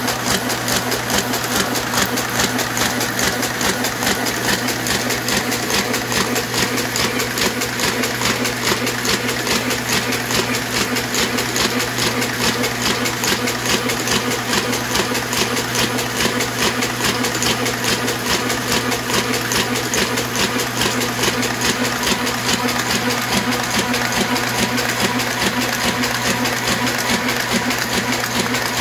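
Hamada 600 offset printing press running at speed, its gears, cams and rollers making a steady, rapid mechanical clatter.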